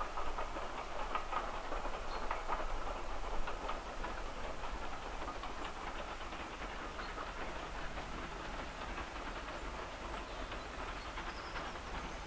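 Steam locomotive and its carriages running in the distance: a faint steady rumble with scattered light clicks.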